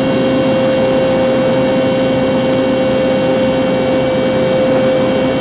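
Multirotor drone's motors and propellers whining at a steady, unchanging pitch over a rushing hiss.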